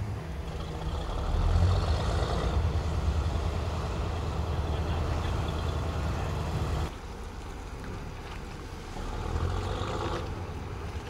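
Engine of a work barge running at the slipway with a steady low rumble, swelling about one and a half seconds in, then dropping abruptly to a fainter rumble about seven seconds in.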